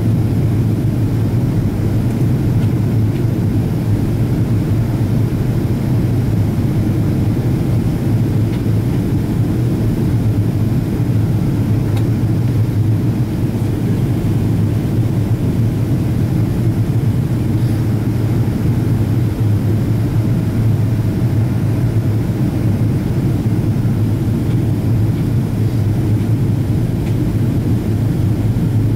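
Steady low drone of engine and airflow noise inside the cabin of a Boeing 777-200ER airliner in flight on approach.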